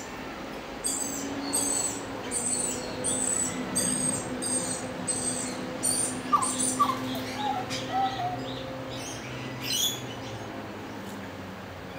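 Butcherbird calling: a few short, low, flute-like notes that fall in pitch, about six to eight seconds in. They sit among a run of high, sharp bird calls repeating about twice a second, and a high call sweeping down in pitch near ten seconds.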